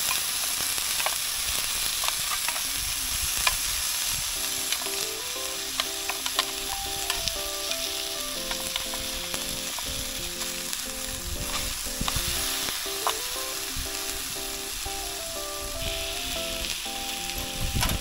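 Chicken yakitori skewers sizzling steadily in a small frying pan on a camp stove, with light clicks of metal tongs turning them. Soft melodic background music comes in about four seconds in.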